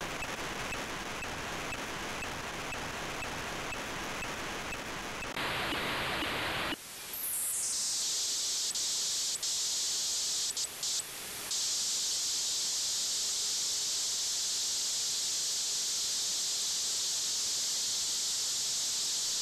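Software-defined radio audio in USB mode from an Inmarsat L-band satellite downlink. At first it is wide receiver hiss. About seven seconds in, a downward sweep narrows it, and the tuned AERO data signal comes through as a steady hiss, with a few brief dropouts around ten to eleven seconds.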